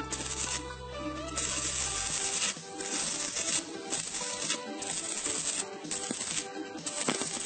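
Stick-welding arc from a ZX7-200G mini inverter welder burning a 2.5 mm electrode on a steel plate: an uneven crackling hiss that breaks off briefly several times. Background music plays under it.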